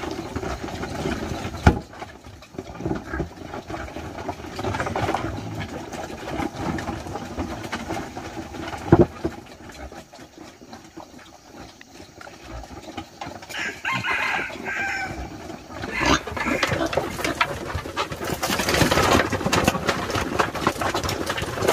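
Chickens, with a rooster crowing once for a couple of seconds past the middle. A sharp knock sounds near the start and another, the loudest moment, about halfway.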